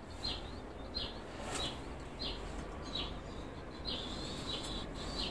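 A small bird chirping over and over, one short high chirp about every two-thirds of a second, over a low steady background rumble.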